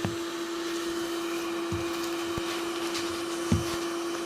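Corded vacuum cleaner running steadily with a constant humming tone, with a few light knocks over it.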